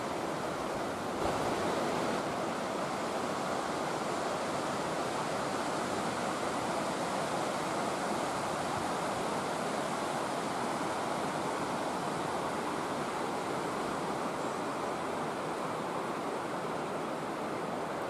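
A steady, even rushing noise with no distinct events or tones, a little louder from about a second in.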